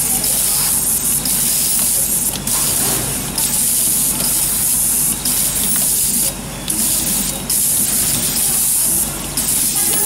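Rotary coaxial cable stripping machine running: a loud, steady hiss with a low hum underneath. The hiss drops away briefly several times as cables are fed into the stripping heads.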